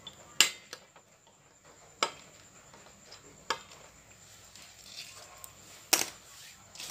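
Side cutters snipping the excess leads off soldered components on an amplifier circuit board: four sharp snaps spaced a second or two apart, the loudest about half a second in and near the end.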